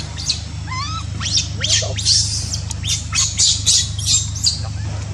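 Baby macaque giving shrill distress squeals, about a dozen quick rising cries in a row, loudest in the middle.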